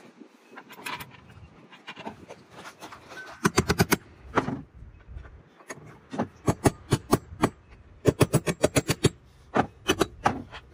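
Claw hammer tapping on the aluminium pylon pole and its mounting bracket: quick runs of sharp taps, several in a row, with short pauses between the runs and fainter knocks in the first few seconds.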